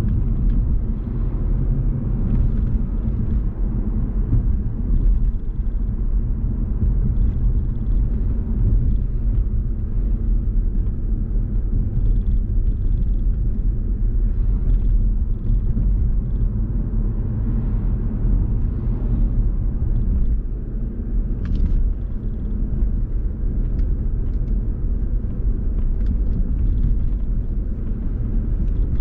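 Steady low rumble of a car driving along a road: tyre and engine noise at an even speed.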